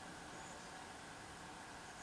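Faint steady hiss of room tone, with no distinct sound event.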